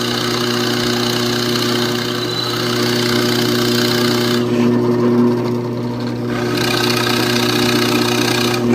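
Electric woodworking power tool running steadily with a constant low motor hum while cutting wood. The higher cutting noise eases off for about two seconds in the middle, then comes back.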